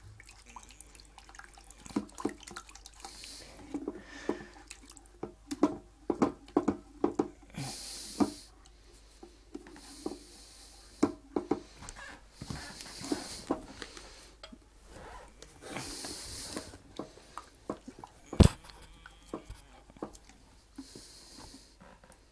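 A spoon stirring thin milky soup in a saucepan: irregular clicks and scrapes against the pan, liquid sloshing, and a few short swishes. One sharp knock about eighteen seconds in.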